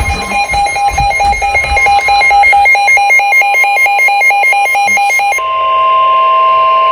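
Emergency alert tone from a weather alert receiver: a loud, rapidly warbling two-pitch electronic alarm, which switches near the end to a steady tone.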